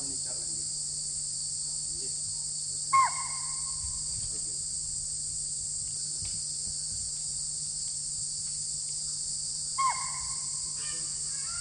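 Two loud, sharp chital (spotted deer) alarm calls about seven seconds apart, each dropping quickly in pitch, over a steady high drone of insects. The alarm calls signal a tiger close by.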